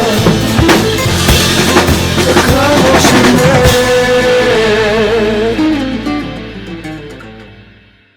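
Ending of a 7080-era Korean pop song played on a drum kit along with the recording, with guitar and band: drum hits up to about three and a half seconds in, then the closing chord rings on and fades out to silence.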